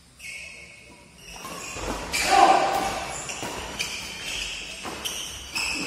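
Badminton doubles rally: rackets striking the shuttlecock in a run of sharp hits, with players' shoes squeaking on the court and a brief shout about two seconds in.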